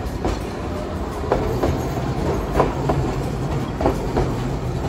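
Hiroshima Electric Railway streetcar rolling past, its wheels clacking over the track joints in pairs, one pair about every second and a quarter, over a steady low rumble.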